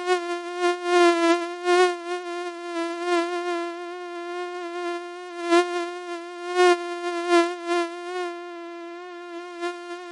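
Mosquito buzzing: a steady, high whine of wingbeats, its pitch wavering slightly as it swells louder and softer every second or so.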